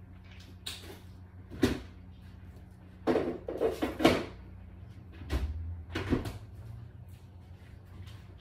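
Irregular handling knocks and clicks: a single knock, then a quick cluster of them about three to four seconds in, a low thump and one more knock, over a steady low hum.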